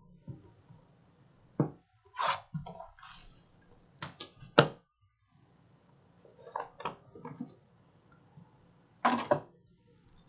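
A trading-card box and its foil packs being handled and opened: scattered taps, knocks and crinkles, the sharpest about four and a half seconds in and a short cluster near the end.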